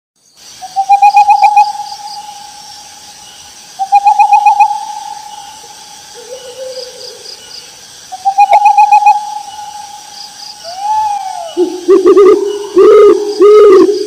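Owl calling: three short runs of rapid hoots, a falling note, then louder, lower hooting near the end. A faint steady insect chorus trills behind it.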